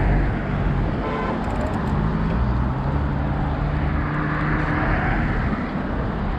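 Wind rushing and rumbling on the microphone of a moving bicycle, with a passing vehicle's steady hum for a few seconds in the middle.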